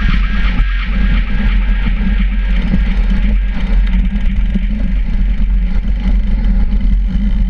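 Mountain bike rolling fast down a gravel track, heard close up at the frame's down tube: a steady rumble of the knobby tyres on loose gravel and wind on the microphone, with small irregular knocks and rattles from the bike. Electronic background music fades out about a second in.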